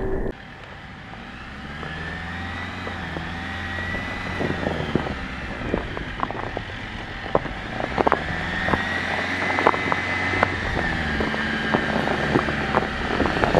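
Jeep Wrangler Rubicon 4xe plug-in hybrid driving slowly over a snowy, rutted track and coming closer, with a steady drivetrain hum and a wavering whine. Its tyres crunch through snow and crack the ice in the ruts, giving many sharp cracks from about four seconds in, and it grows louder as it nears.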